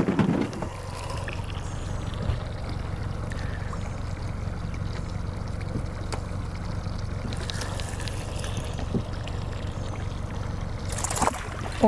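Steady low rumble with a faint hiss on an open fishing boat on the water, with a few faint clicks now and then.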